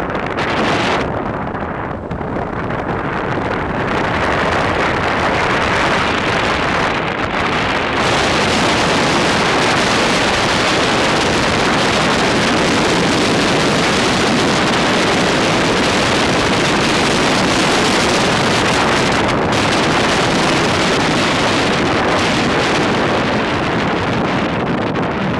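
Wind rushing over the microphone of a camera carried on a moving vehicle, over the vehicle's running noise. It builds over the first few seconds, then holds loud and steady.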